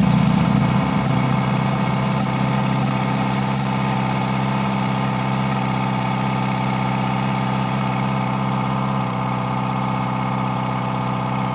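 Kawasaki ZX-4RR's inline-four engine idling steadily, with the abnormal noise that the owner hears coming from the air intake.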